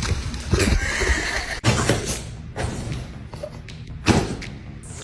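Dogs tussling in a play fight: scuffling and several thuds, with background music underneath.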